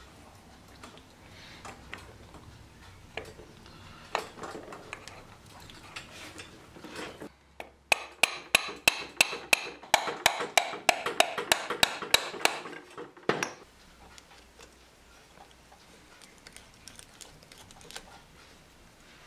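Metal parts of a 1950 drill-milling machine's gear housing being handled and fitted together by hand. Midway there is a run of sharp metallic clicks, about three or four a second, for several seconds.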